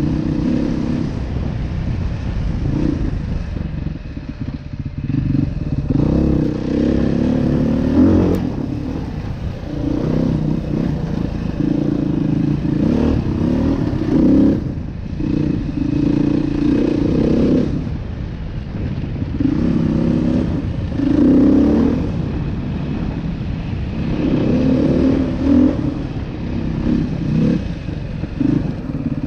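Beta 500 RR-S dual-sport motorcycle's single-cylinder four-stroke engine under way on a dirt trail. The throttle is opened and eased off again and again, so the engine note keeps rising and falling.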